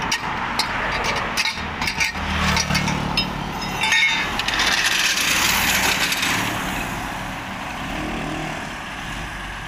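A motor running steadily nearby, easing off after about six seconds, with several sharp metallic clinks as a steel pipe handle is worked on a hydraulic floor jack, the loudest ringing briefly about four seconds in.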